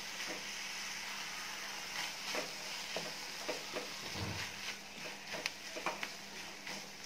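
Onions, tomatoes and small dried fish sizzling as they are sautéed in a metal kadai, with the spatula stirring them and scraping and tapping against the pan every second or so.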